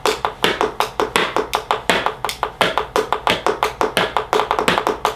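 Fast run of sharp taps, about six a second, each with a short knocking ring.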